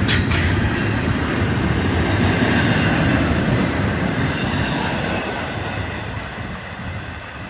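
Freight train cars rolling past, a steady rumble and rattle of steel wheels on rail, with a few brief high-pitched squeals. The noise fades over the last couple of seconds as the end of the train goes by.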